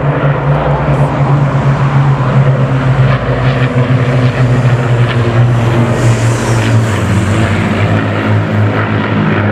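Avro Lancaster bomber flying past low in formation with two propeller fighters: loud, deep drone of the piston engines, its four Rolls-Royce Merlins dominant. The pitch drops slightly in the second half as the formation passes.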